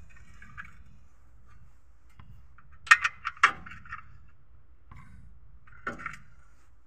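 Sharp metallic clinks from work under the car: a quick run of four about three seconds in and two lighter ones near the end.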